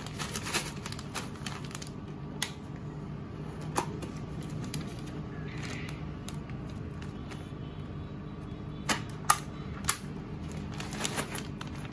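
Plastic vacuum bag being handled and smoothed over a vacuum sealer's suction bar, with scattered light clicks and taps, then a few sharper clacks about nine to ten seconds in as the sealer's lid is shut.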